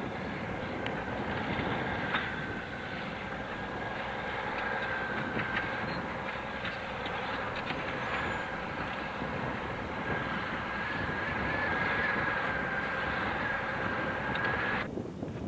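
A motor vehicle running steadily, with a high steady whine over the noise and scattered rattling clicks; it cuts off suddenly near the end.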